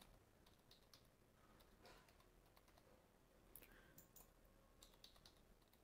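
Very faint computer keyboard typing: scattered single key clicks, barely above near silence.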